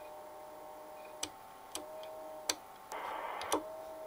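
Icom IC-751A's FM transmit signal heard on a monitoring receiver. A faint steady tone, the transmit buzz fault, comes and goes between sharp clicks as the transmitter is keyed on and off, with a short burst of hiss a little before the end.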